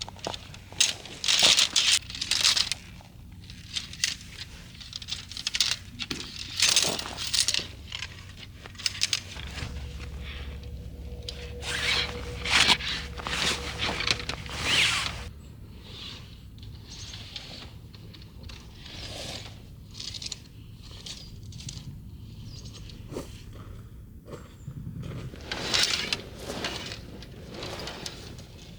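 Irregular rustling, crunching and scraping of someone moving about and handling camping gear in snow. A low steady rumble joins in the middle for several seconds.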